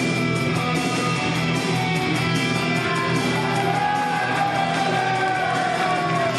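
Rock wrestling entrance music with guitar playing continuously, a lead line bending slowly down in pitch in the second half.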